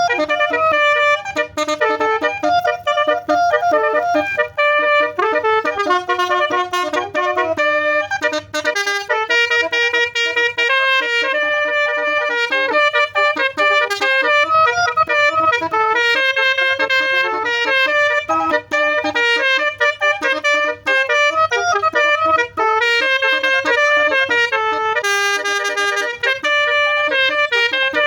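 Basuri horn, the multi-tone melodic horn fitted to Indonesian trucks and buses, playing a tune as a chain of held, reedy notes stepping up and down in pitch, with a faint low hum underneath.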